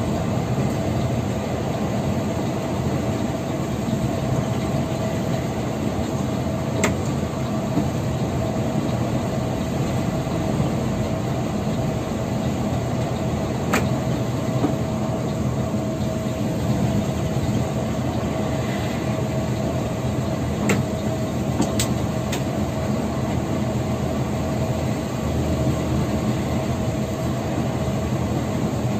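Steady drone of an intercity coach bus's engine and road noise heard inside the cabin while cruising on a highway, with an even hum running through it. A few sharp clicks or rattles stand out, several of them close together about two-thirds of the way in.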